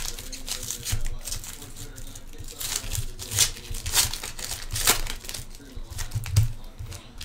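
Sealed Panini Prizm football card pack wrappers crinkling and tearing in irregular crackles as they are worked open by hand. The packs are sealed tight and hard to open.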